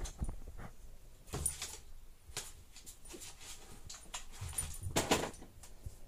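A pug–chihuahua mix dog tussling with a cat on a wooden floor: scuffling and short sharp knocks with brief dog sounds, loudest about five seconds in.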